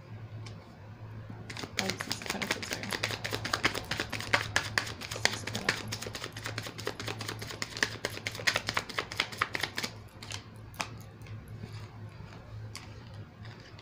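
A tarot deck being shuffled by hand: a fast run of card flicks and clicks that starts about a second and a half in and thins to a few scattered clicks for the last few seconds, over a steady low hum.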